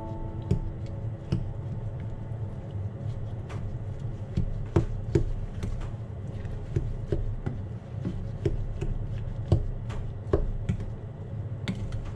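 Wooden spatula stirring and mashing blueberries in a stainless steel saucepan, with irregular knocks and scrapes against the pot, over a steady low hum.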